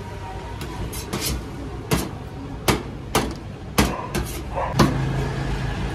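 A large knife chopping through a crisp grilled toast sandwich, the blade knocking sharply on a stainless steel counter: about nine separate knocks at uneven intervals. A steady low hum joins about five seconds in.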